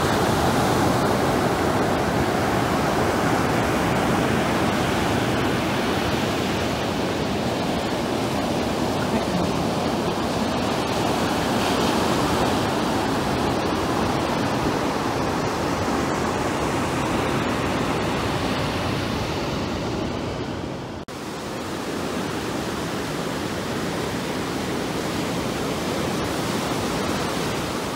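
Ocean surf breaking and washing up on a sandy beach, a steady rush of waves, with a brief dip in level about three-quarters of the way through.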